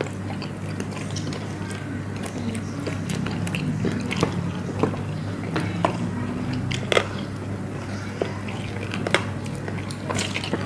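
Close-up eating sounds: biting and chewing spicy grilled chicken wings, with scattered sharp wet clicks and smacks from the mouth over a steady low hum.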